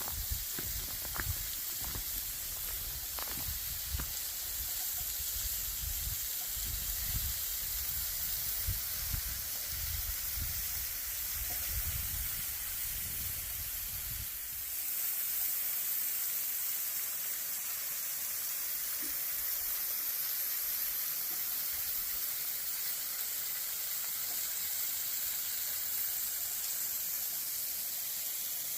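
Thin flow of water falling and splashing down a mostly frozen waterfall: a steady, even hiss. Through the first half there is an uneven low rumbling with a few clicks, which stops about halfway.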